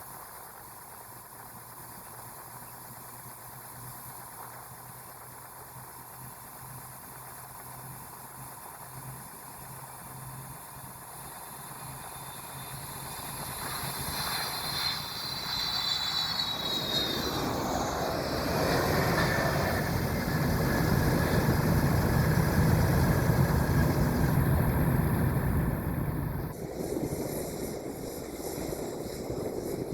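Jet airliner engines passing close by, building from a distant hum into a loud rumble with a falling whine. The sound drops off abruptly about 26 seconds in.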